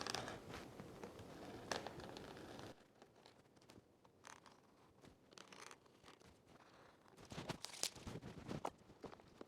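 Scissors scratching and cutting through the seal of a cardboard box for about two and a half seconds, then scattered small clicks and rustles, with a cluster of louder scrapes and rustles near the end as the box is worked open.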